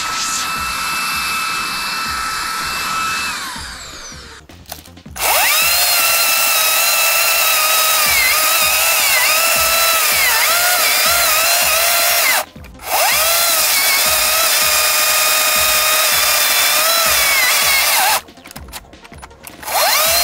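Makita 40V cordless air duster blowing with a steady whine, then winding down a few seconds in. Then a Makita MUC019GZ 40V rear-handle cordless chainsaw cutting through a stump, with a loud whine whose pitch dips as the chain takes load; it stops twice and spins back up each time.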